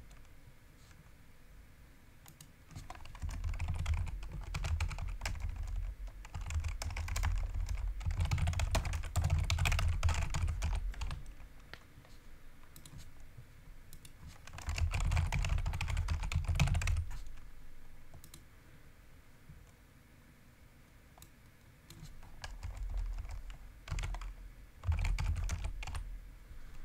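Typing on a computer keyboard: quick runs of key clicks in three spells of a few seconds each, with pauses between.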